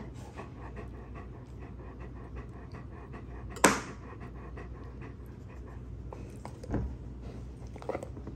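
A dog panting steadily close by. About a third of the way in, a sharp clack as a steel knife is set down on a glass baking dish, with softer knocks near the end.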